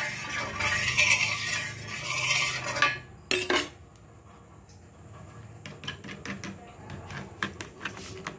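A steel spoon scraping across an iron tawa as it spreads oil over the griddle, for about three seconds, then a single metal clink. After that come quieter light taps and clicks of a spatula beating eggs in a small bowl.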